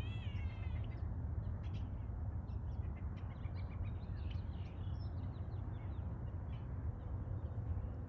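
Common starlings calling: a drawn-out, meow-like whistle with several overtones in the first second, then a run of short chirps, clicks and whistles. A steady low rumble runs underneath.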